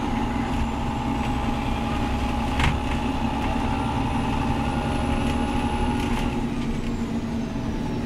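Steady engine and running hum of a city bus heard from inside the passenger cabin, with one sharp click about two and a half seconds in.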